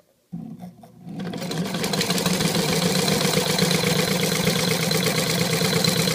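Morse 3/4-size vibrating shuttle sewing machine stitching under its electric motor: it starts about a third of a second in, picks up speed over the next second or so, and then runs steadily at speed with its motor hum and the needle's rapid clatter.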